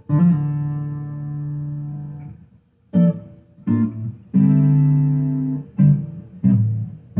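Acoustic guitar chords strummed and left to ring. A first chord near the start rings out for over two seconds, then five more strums follow in a loose rhythm.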